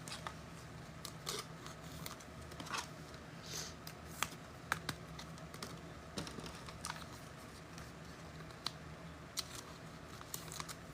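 Light, irregular clicks and taps from hands handling trading cards and packs, over a faint steady hum.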